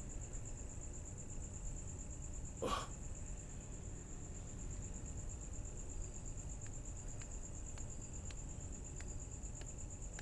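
Crickets chirping in a steady, high, pulsing trill. About two and a half seconds in there is one brief breathy noise. From about six seconds in come faint footsteps, roughly two a second.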